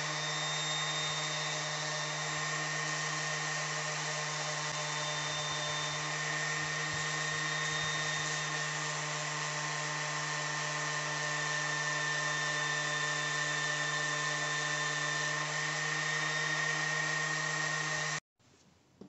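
Corded random orbital sander running steadily while the uneven cut end of a plastic drain pipe is held against its upturned pad to smooth it. The motor stops abruptly about 18 seconds in.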